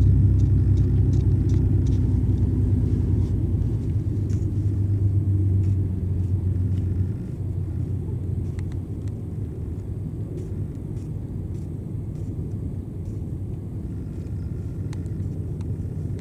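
Fast passenger ferry's engines droning as it passes offshore. The drone is low and steady, fades over the first several seconds and drops away about seven seconds in, leaving a low rumble.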